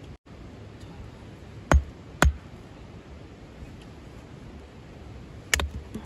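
Hatchet chopping a thin wooden plank into kindling: two sharp chops about half a second apart, then another near the end.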